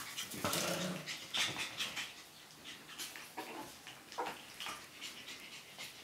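Maltese puppies whimpering, with a short whine about half a second in and a few brief cries later, among scattered small clicks and scuffles.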